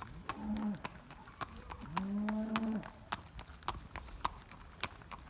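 A cow mooing twice: a short moo, then a longer, steadier one about two seconds in. Irregular sharp knocks sound throughout.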